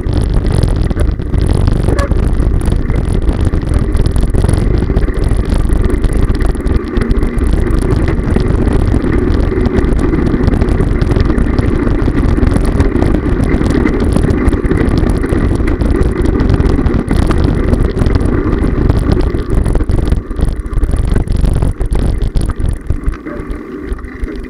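Steady, loud rumble and rattle of a bicycle and its handlebar-mounted camera rolling over cobblestones.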